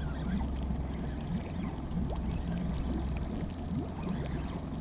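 A boat's motor running steadily at low trolling speed, giving a constant low hum.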